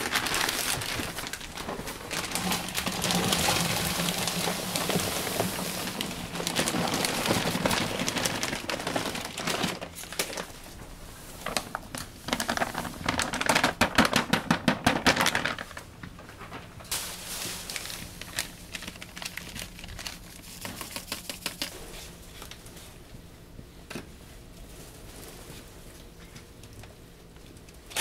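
Food-stall preparation of bungeoppang: steady small clicking, crackling and clattering, with a few seconds of rapid, louder tapping about halfway through.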